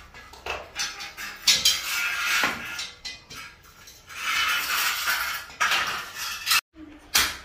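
A hand tool knocking and scraping on galvanised steel false-ceiling channels: repeated sharp metallic clinks and clanks, with two longer stretches of rattling.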